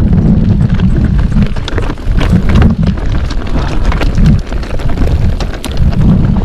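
Wind buffeting the action camera's microphone, over the frequent knocks and rattles of a Commencal Meta TR 29 mountain bike rolling down a rocky trail.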